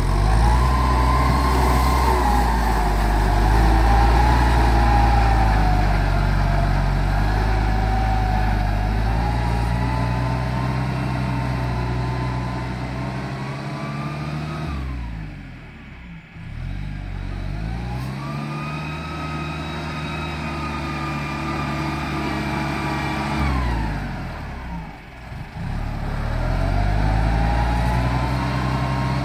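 Diesel farm tractor engine running under load while it pulls a disc plough over dry ground. Twice, around the middle and again about three-quarters through, the engine note slides down and fades, then picks back up.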